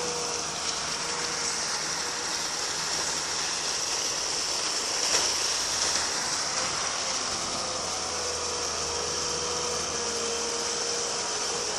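Excavator-powered mud pump running, a steady mechanical drone under a loud hiss like rushing water or slurry, with a faint wavering whine. A brief sharp tick about five seconds in.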